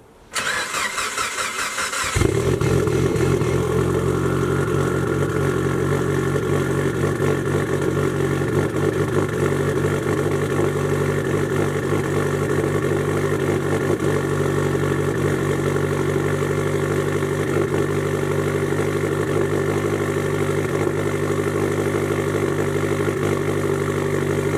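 Cold start of a Mitsubishi Lancer Evolution's turbocharged 4G63 four-cylinder through a Tomei exhaust. The starter cranks for about two seconds, then the engine catches on the first try and runs at a steady idle.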